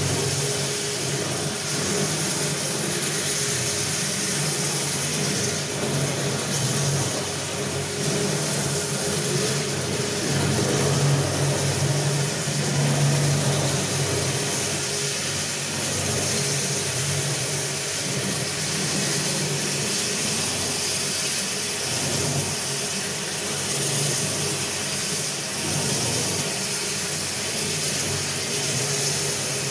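Floor polishing machine running steadily on a marble floor: its electric motor hums while the rotating pad grinds the wet stone.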